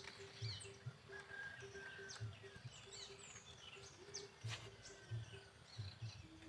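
Faint birdsong: scattered short chirps and quick whistled sweeps from several birds, over a low tone that pulses on and off about three or four times a second.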